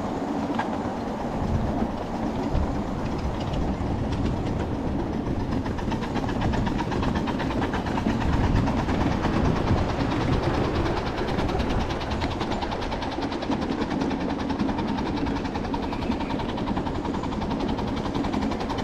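Steady rumble and rattle of a 7½-inch gauge live-steam train's riding cars rolling along the track, with fine rapid clicking from the wheels and couplings.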